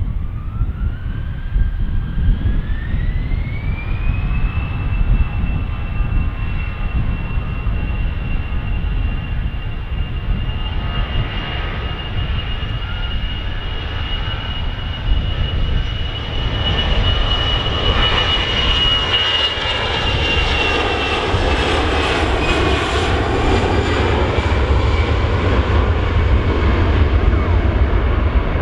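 Airliner's engines spooling up for takeoff: a whine rises over the first few seconds, then holds steady. It drops a little in pitch past the middle as the aircraft passes on its takeoff roll, while a broad rushing roar and a low rumble grow louder toward the end.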